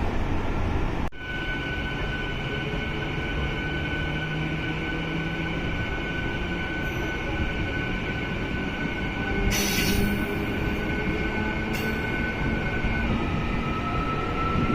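MEMU electric passenger train running on the rails: a steady rumble under a high, steady whine that drops slightly in pitch near the end. The level dips suddenly about a second in, and two short hisses come about ten and twelve seconds in.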